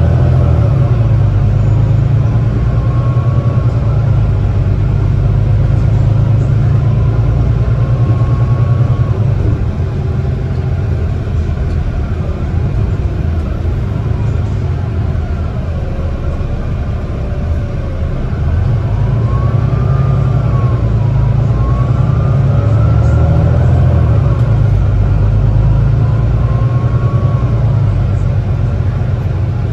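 Volvo B9TL double-decker bus heard from inside the passenger cabin while driving: the six-cylinder diesel engine's low drone, with a driveline whine that rises and falls in pitch several times as the bus accelerates and changes gear.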